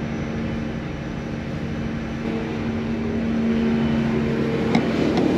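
A fishing boat's engine running steadily under way, heard from inside the wheelhouse as a constant hum that grows louder about halfway through. Two short clicks come near the end.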